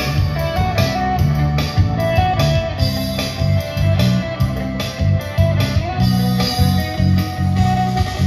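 Live band music with electric guitar and keyboard over a heavy bass line and a steady drum beat.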